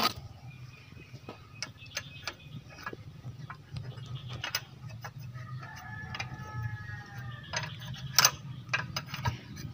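Sharp metal clicks and clinks of a wrench on the injector fuel-line fittings of a Caterpillar D3 diesel engine, over a steady low hum. A rooster crows from about five and a half seconds in.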